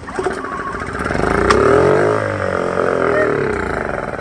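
Small Honda generator's engine firing on starter fluid sprayed into its intake: it catches, rises in pitch for about a second, then sags and slows. The carburetor is gummed up, so it runs only briefly on the fluid.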